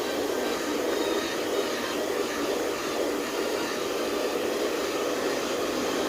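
Handheld hair dryer running steadily, a constant blowing hum.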